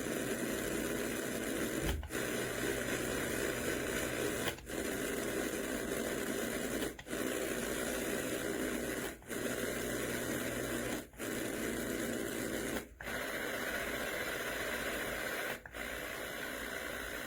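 LectroFan Evo white noise machine playing a steady hiss of noise, cut by a brief drop-out every two to three seconds, with the character of the noise shifting slightly from one stretch to the next.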